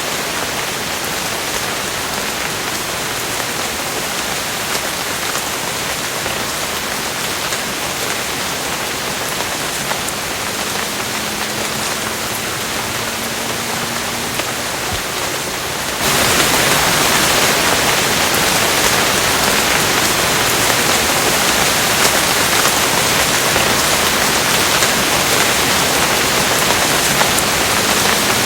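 Steady rain falling. About halfway through it abruptly becomes louder and brighter, and stays that way.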